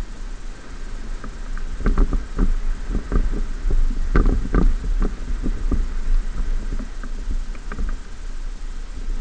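A Ford F-150 pickup driving over rutted beach sand, heard from a camera on its bonnet: a steady low rumble with a run of knocks and rattles, thickest in the middle few seconds.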